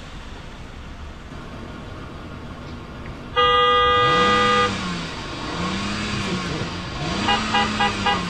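Car horn: one long blast of over a second about three seconds in, then a rapid string of about six short toots near the end. Meanwhile the car's engine revs up and down three times.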